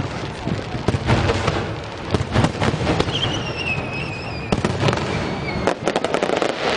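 Drum-can fireworks going off in a dense run of bangs and crackling bursts. A high whistling tone, falling slowly in pitch, sounds from about three seconds in for about two seconds.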